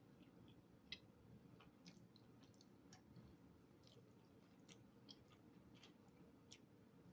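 Near silence with faint, scattered mouth clicks of someone chewing food, the clearest about a second in.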